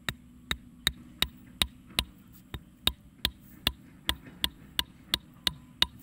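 A steady run of sharp ticks, nearly three a second, evenly spaced like a clock, over a faint low hum.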